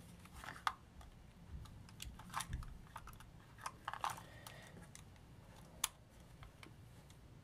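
Quiet handling noise from a Fujifilm FinePix AX compact camera turned over in the hands: scattered small plastic clicks and taps, the sharpest a little under six seconds in.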